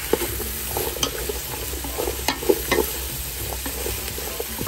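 A wooden spatula stirring and turning chunks of squash, eggplant and green beans in a stainless steel pot, with irregular scrapes and knocks over a steady sizzle of the vegetables sautéing.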